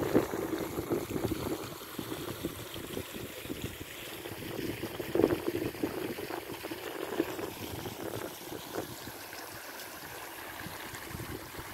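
Shallow stream flowing and trickling over rocks and stones, steady, with a couple of louder swells near the start and about five seconds in.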